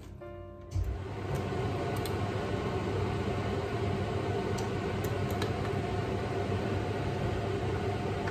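A kitchen fan running steadily with a low hum. It starts suddenly about a second in, with a few faint clicks over it.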